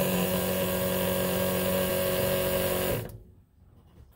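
Carter electric fuel pump running with a steady, even-pitched hum, pushing fuel through the newly installed tee fittings and check valve to prime the carburetor bowls. It stops about three seconds in.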